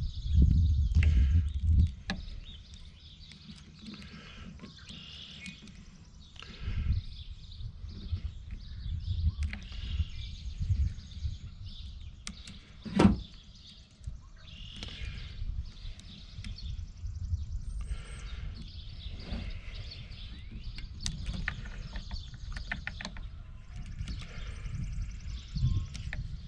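Hands fiddling with small parts on a Husqvarna 350 chainsaw's carburetor linkage: light clicks and rubbing, with one sharp click about halfway through. Birds chirp in the background.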